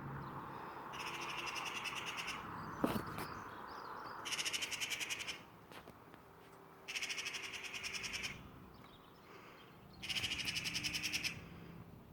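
A bird's rapid rattling chatter, given in four bouts of about a second each, a couple of seconds apart. A single sharp knock comes shortly before the second bout.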